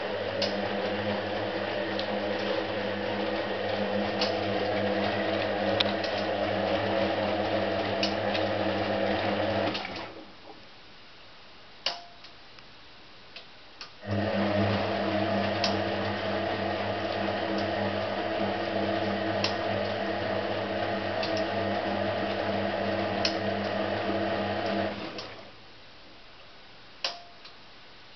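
Hotpoint 18371 Super Electronic washing machine's drum motor running with a steady hum as it tumbles the wash in a rinse. The motor runs about ten seconds, stops for about four with a single click in the pause, then runs again for about eleven seconds and stops once more, the tumble-and-pause pattern of the drum's wash action.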